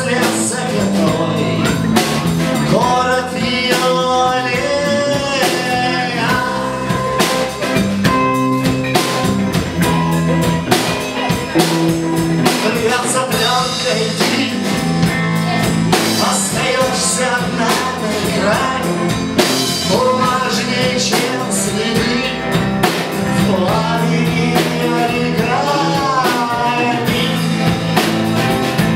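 Rock song with drum kit, bass and guitar, with a bending melody line carried over a steady bass line.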